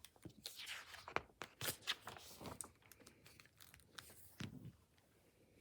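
Faint rustling and crinkling of paper as the pages of a picture book are handled and turned, in scattered short rustles.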